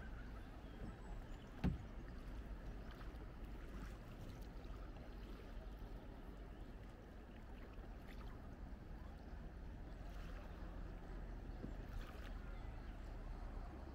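Kayak paddling on a calm river: paddle strokes dip into the water every couple of seconds over a low steady rumble, with one sharp knock about two seconds in.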